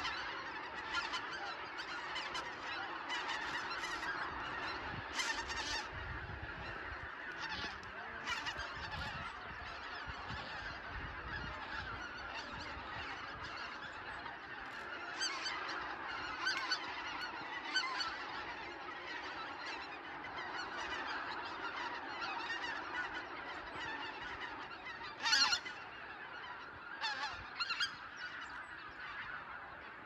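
A large flock of greater white-fronted geese calling overhead in flight: a continuous chorus of many overlapping high honks and yelps, with a few louder calls standing out, the loudest about 25 seconds in.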